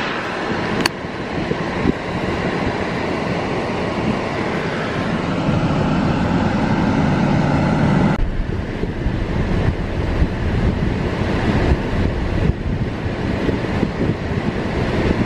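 Road and wind noise of a moving car, a steady rushing of tyres and air that grows louder over the first few seconds and shifts about eight seconds in. A single sharp click sounds about a second in.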